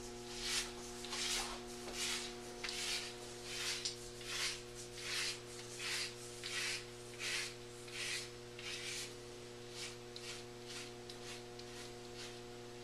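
HeadBlade Sport razor scraping over lathered stubble on the back of the head in quick repeated strokes, about one and a half a second, growing fainter and dying out about ten seconds in. The scraping is the noise of hair still left on the scalp; it goes quiet once the skin is shaved smooth.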